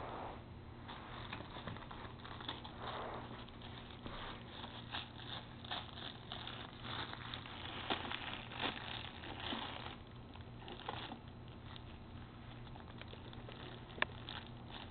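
Rustling and crinkling with scattered small knocks as a toddler handles a tin gift bucket, its cellophane wrap and paper grass, with one sharp knock near the end.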